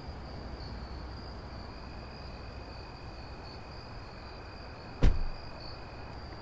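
Crickets chirping steadily at night. About five seconds in, a car door shuts once with a heavy thump.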